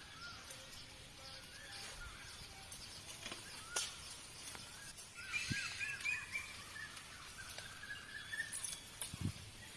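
Birds chirping outdoors. A quick series of repeated chirps comes about halfway through, and a sharp click is heard a little before it.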